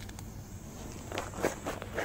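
A person's footsteps, four or five quick steps starting about a second in.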